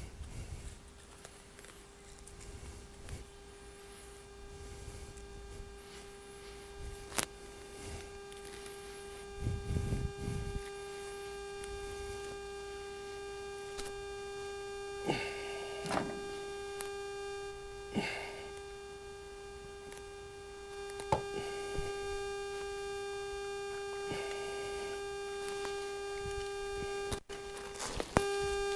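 A steady hum holding one pitch, with a few short knocks and scrapes over it.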